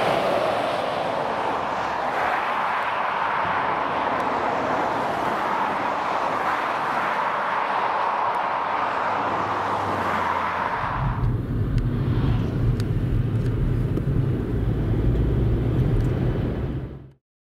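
A fire service water carrier passes close at speed, followed by the steady tyre and engine noise of dual-carriageway traffic, with no siren. About eleven seconds in this gives way to a low rumble, and the sound cuts off abruptly just before the end.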